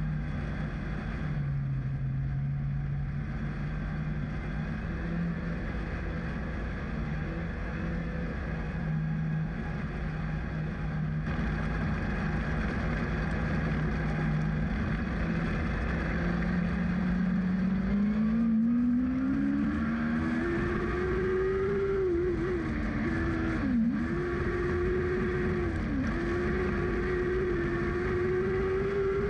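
Lightning Sprint engine heard from the cockpit: it runs at low, steady revs, then about two-thirds of the way through it revs up and holds a high pitch. Twice the revs dip briefly as the throttle is lifted, as at corner entry.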